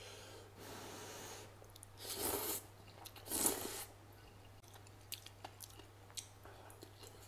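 A person slurping noodles in a few noisy pulls, then chewing with faint wet clicks.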